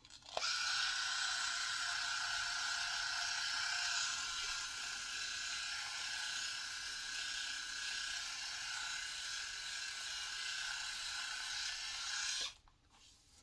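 Sejoy cordless three-head rotary electric shaver running with a steady buzz as it is worked over the chin. It starts suddenly about half a second in and cuts off suddenly near the end.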